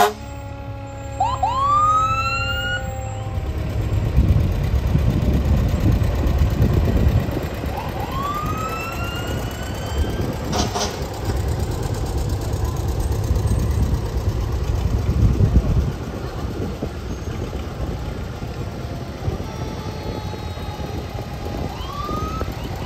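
Fire engine's diesel engine rumbling as the truck pulls away, easing off after about sixteen seconds. Short rising siren whoops sound about a second in, around eight seconds and again near the end.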